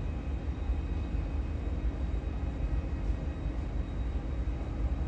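Steady low rumble of jet airliner engines at taxi and take-off power, with a faint high whine over it.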